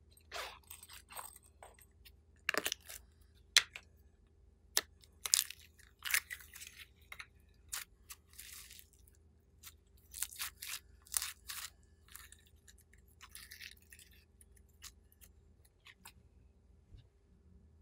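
Clear slime packed with small foam beads being squeezed and worked in the hands, giving irregular crackles, pops and sticky clicks that thin out in the last few seconds.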